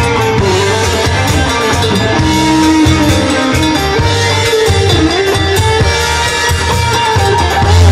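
Live band playing a rock song loudly: electric guitar over drum kit and bass, with a held melody line on top.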